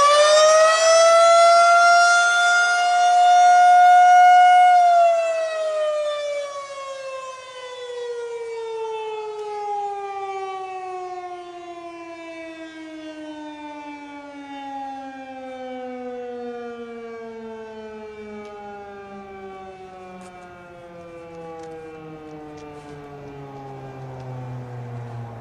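Federal Signal 2001-130 single-tone civil defense siren sounding a test. It holds a steady wail at full pitch, then shuts off about five seconds in and winds down, its pitch falling slowly and its sound fading over the next twenty seconds.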